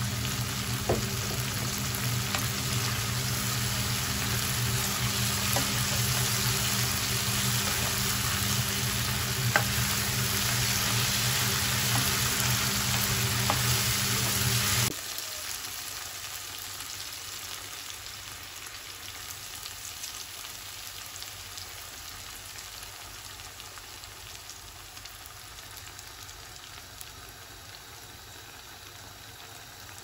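Sliced mushrooms and onions sizzling as they fry in oil in a nonstick pan, with a few light ticks. About halfway through the sizzle drops abruptly to a softer one that slowly fades.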